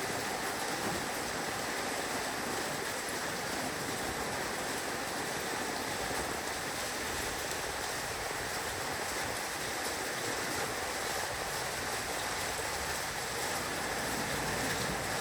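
Heavy rain falling on a roof, a steady dense hiss of countless drops with no let-up.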